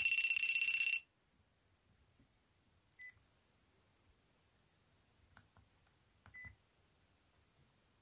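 Panasonic P504i flip phone's built-in buzzer ringtone: a high, rapidly pulsing electronic buzz for about a second that then cuts off. Later come two short faint key beeps as the menu keys are pressed.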